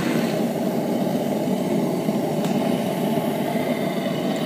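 Atmospheric propane forge burner running with a steady low rush. Its flame forms a defined cone and secondary flame, which the owner thinks may be burning correctly.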